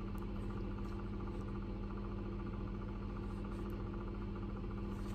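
A steady low hum with a fine, fast buzz above it, unchanging throughout: background machine or electrical noise.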